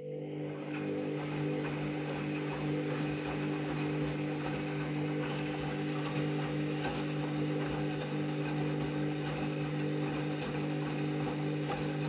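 Candy washing machine running mid-wash: a steady mechanical hum with a hiss of water over it, which cuts off suddenly near the end.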